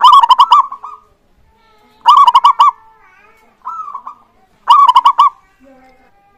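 Zebra dove (perkutut) cooing its song three times, each phrase a quick run of four or five coos, with a single softer coo between the second and third phrases.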